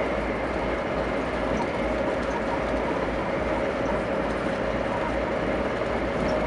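Steady rumble and rush of a VIA Rail passenger train running at speed, heard from inside the coach, with a steady hum running through it.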